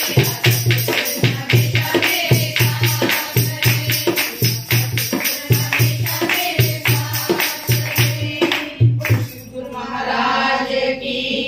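A group of women singing a Hindu devotional bhajan to fast, even handclapping and drum beats. About nine seconds in, the clapping and drumming stop and the voices carry on with a long held note.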